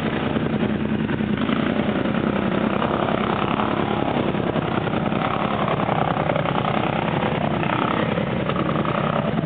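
A motor vehicle's engine running steadily, with no change in speed.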